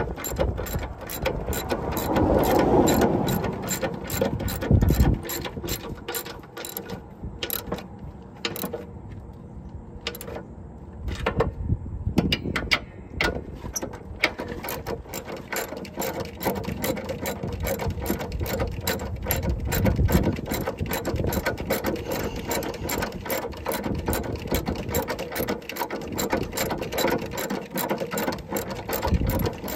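Hand ratchet wrench clicking in quick, repeated strokes while tightening the mounting nuts of a newly fitted truck air spring (airbag), with a low thud about five seconds in.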